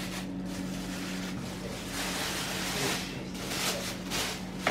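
Thin plastic bag rustling and crinkling in uneven swells as it is pressed down and folded tightly around a tray, over a steady low hum.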